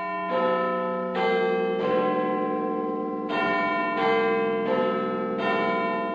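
Bells chiming eight notes in two four-note phrases, each note struck and left ringing so that they overlap.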